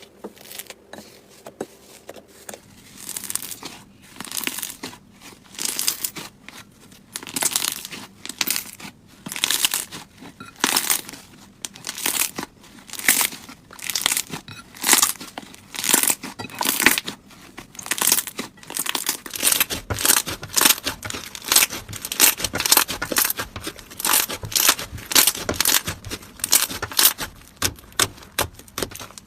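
Slime being squeezed and worked by hand, in repeated noisy bursts: about one a second at first, then quicker and denser from about two-thirds of the way through.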